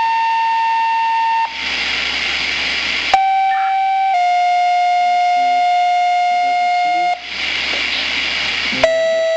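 Motorola Minitor II fire pager's speaker sounding dispatch two-tone paging tones. Each steady, slightly buzzy tone holds for one to three seconds, and the pitch steps down from tone to tone. Two bursts of radio hiss, each about a second and a half, come between tone sets, and a new tone starts near the end. This is the tone-out that alerts fire companies before the voice dispatch.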